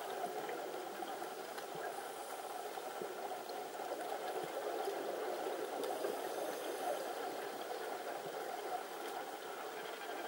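Steady muffled underwater bubbling and hiss from scuba divers' exhaled air, swelling slightly midway.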